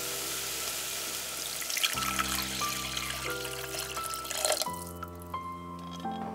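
Water poured from a glass measuring jug into a stainless steel saucepan of sautéed mushrooms and vegetables, splashing steadily and stopping a little after two-thirds of the way through. Soft background music with held notes plays throughout.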